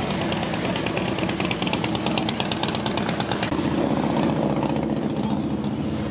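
Motorcycle engine running with a steady low rumble, with a fast high ticking over it for roughly the first three seconds.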